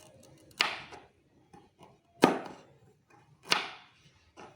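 Knife chopping ginger: three sharp chops about a second and a half apart, then a faint tap near the end.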